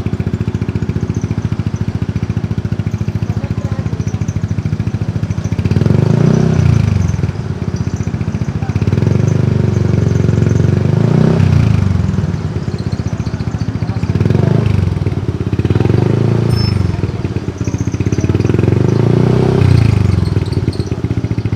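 Yamaha NMAX 155 scooter's single-cylinder four-stroke engine running through an aftermarket exhaust, idling steadily at first, then revved in several blips about five seconds in, each rising and falling back to idle.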